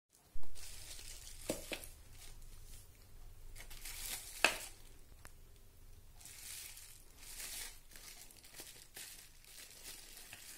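Plastic bubble-wrap bags crinkling and rustling as they are handled and unwrapped. There is a loud knock about half a second in, and a few sharp clicks, the sharpest about four and a half seconds in.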